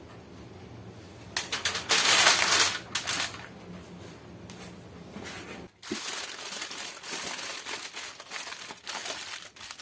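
Aluminium foil crinkling and crackling as it is handled and folded over a leg of lamb, with a loud dense burst of crinkles about two seconds in and lighter crinkling later.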